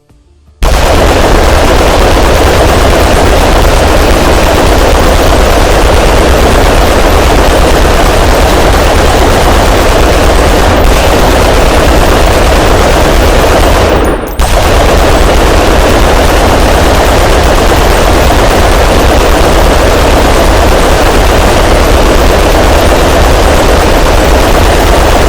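A very loud, heavily distorted gunfire sound drawn out into one continuous blast. It starts abruptly just under a second in and carries on without a break, apart from a brief dip about fourteen seconds in.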